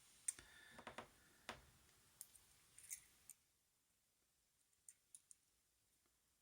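Faint metallic clicks and light scraping of small tools working inside a Squire SAL40 padlock being taken apart, a handful of sharp ticks over about three seconds, then near silence broken by three tiny clicks.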